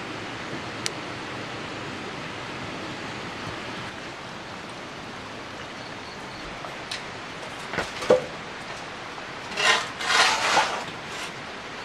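Steady rushing of running water. A few sharp knocks come about eight seconds in, and short scraping bursts follow near the end.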